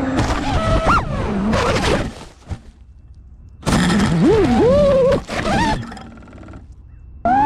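FPV quadcopter brushless motors whining, the pitch swooping up and down sharply with throttle, in two loud bursts with a quieter gap between.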